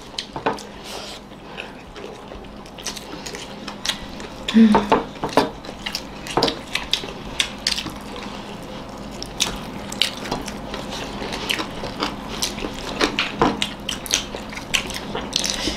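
Mouth sounds of people eating rice with their hands: wet chewing and lip smacks as many short, irregular clicks. A brief voice sound about four and a half seconds in.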